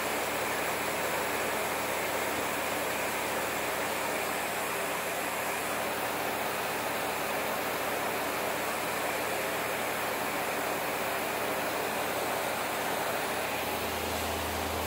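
Steady, even hiss of an electric fan blowing fog around, with a faint low hum that grows louder near the end.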